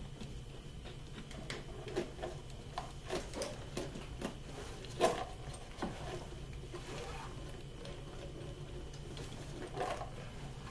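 Scattered light clicks and knocks of hand tools and metal engine parts being handled as a valve cover is worked off a Dodge Grand Caravan engine, with the loudest knock about five seconds in. A steady low hum runs underneath.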